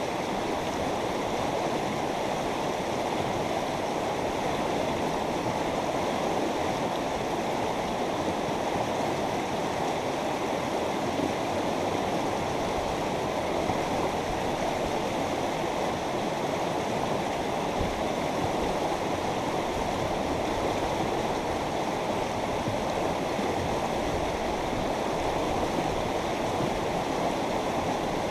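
A mountain river flowing: a steady rush of running water, strongest in its low, full tones and unchanging throughout.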